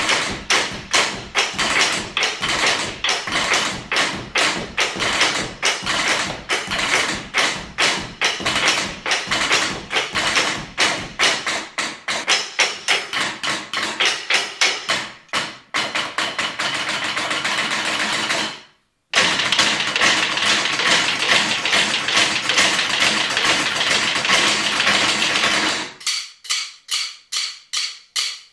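Chair percussion ensemble: drumsticks striking plastic, wooden and office chairs in fast interlocking tapping rhythms. The playing cuts off abruptly for a moment about two-thirds through, comes back as a dense continuous clatter, and near the end thins to separate strikes about four a second.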